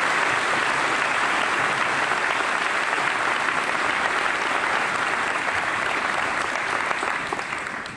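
A large audience applauding, a dense steady clapping that dies away near the end.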